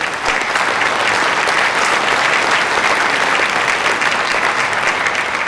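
An audience applauding loudly, a dense, steady clatter of many hands clapping.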